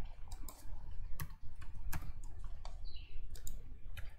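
Typing on a computer keyboard: about a dozen short key clicks at an uneven pace as text is entered.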